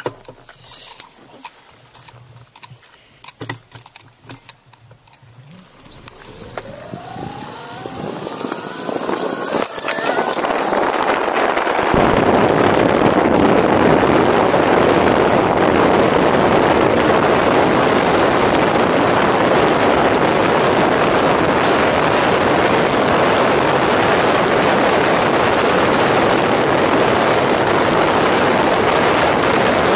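Bafang BBSHD mid-drive e-bike motor under full throttle. After a few seconds of scattered clicks, its whine rises in pitch as the bike accelerates. From about twelve seconds in, a loud, steady rush of wind and gravel-tyre noise takes over at top speed.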